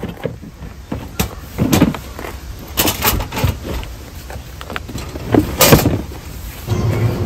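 Knocks, bumps and scrapes of a hard-plastic Coleman wheeled cooler being pushed and shifted into a car boot, a handful of sharp knocks spread over the first six seconds. Near the end a steady low hum takes over.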